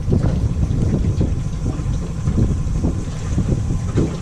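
Wind buffeting the microphone on a boat: a loud, uneven low rumble with a few soft knocks scattered through it.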